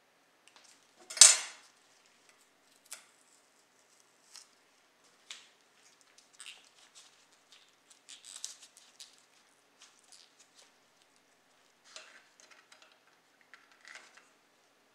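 Small model car parts handled by gloved hands on a tabletop. There is a sharp clack about a second in, then scattered light clicks and scrapes as a small tyre is worked onto its wheel rim and the wheel is pressed onto the axle.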